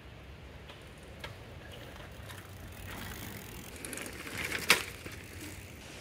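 Bicycle rolling over a dirt trail, its noise building to a sharp clack nearly five seconds in.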